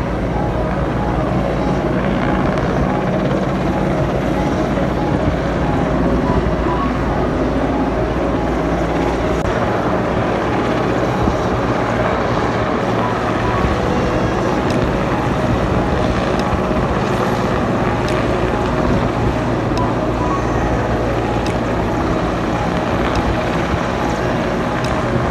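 Indian Air Force helicopter flying low overhead, its rotors and engines making a steady low drone, over the continuous rush of floodwater pouring through a barrage.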